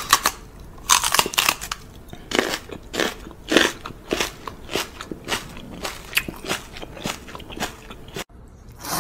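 A man making repeated kissing smacks with his lips, short sharp smacks about two a second, which stop abruptly about eight seconds in.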